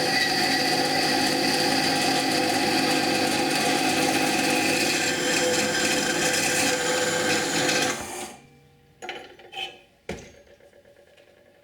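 A power tool grinding a small steel part to clean it up, running steadily and stopping about eight seconds in, followed by a few light knocks.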